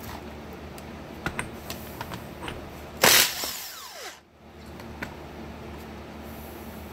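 A few light metal clinks, then a red cordless power tool runs in one short loud burst about three seconds in and winds down with a falling whine. It is working off one of the outer caps of a John Deere piston pump.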